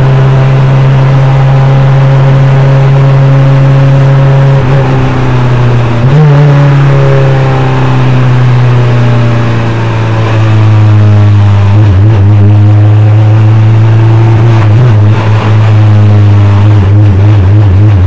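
NP-01 prototype race car's engine running hard at racing speed, heard from inside the cockpit. The note holds steady, sags for a few seconds mid-way, then picks back up, and turns into a rapid stutter near the end.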